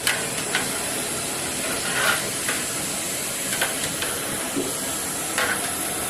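Country chicken curry frying in a pot with a steady hiss and sizzle, broken by about seven short clicks.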